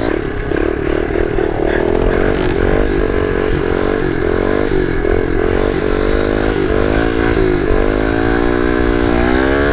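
Kawasaki KLX110 pit bike's small four-stroke single running under way, its revs rising and falling with the throttle and climbing higher near the end. Wind rumbles on the microphone.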